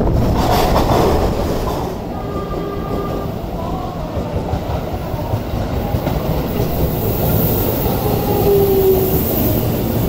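Electric commuter trains running on rails: a JR E233-2000 series moving through an underground station, then a Tokyo Metro 16000 series on open track. The wheel and running rumble is steady, louder for the first two seconds, with a brief faint tone about two seconds in and another near the end.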